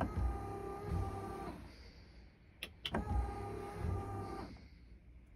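Boat windshield wiper motors whining through two sweeps of about a second and a half each, with a pause of about a second between them, the intermittent cycling of a Marinco wiper delay controller. Two sharp clicks come in the pause.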